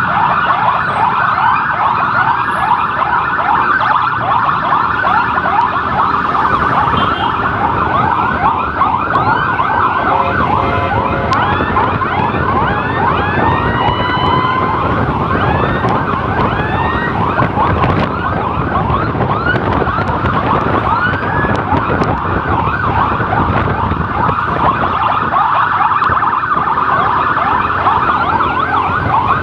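Emergency sirens sounding during an ambulance escort: a fast, rapidly repeating warble that never lets up, with a second siren gliding up and down more slowly over it, and road and engine noise beneath.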